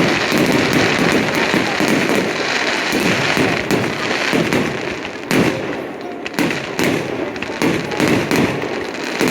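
Fireworks display going off: dense, continuous crackling with many bangs for about the first half, then separate sharp bangs with short gaps between them.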